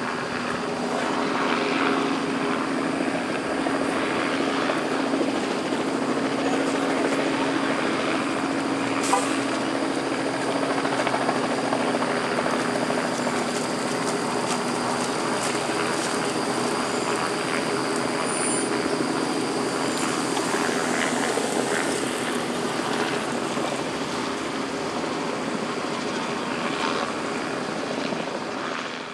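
Helicopter overhead: a steady drone of rotor and engine with a thin high whine, its low hum fading about halfway through.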